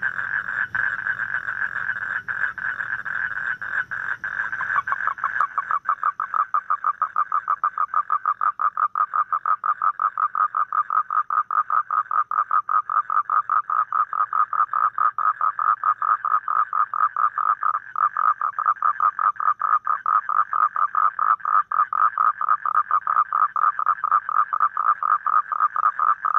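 Toad trilling: a long, continuous high-pitched trill, steady for the first few seconds, then from about five seconds in a slightly lower, rapidly pulsing trill that keeps going without a break.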